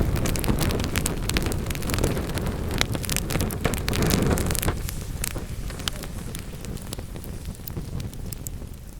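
Wood fire crackling and popping in a fireplace, many sharp crackles over a low rush of flame. About halfway through the low rush fades and the level drops, leaving sparser crackles.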